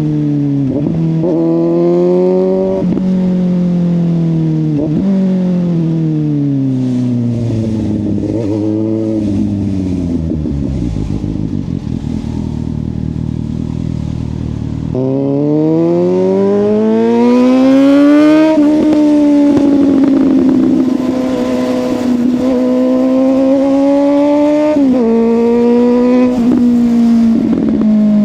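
Suzuki GSX-S750 inline-four with a Yoshimura exhaust, under way. In the first seconds the revs rise and fall through several quick gear changes, then sink to low revs for a few seconds. About halfway it accelerates hard, with the pitch climbing steeply until an upshift, then settles into steady running with a couple of quick shifts near the end.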